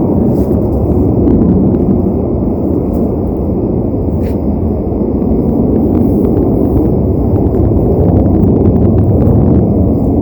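A loud, steady, low roar with no clear pitch, like military jets or a tornado just beyond the trees; its source was never identified.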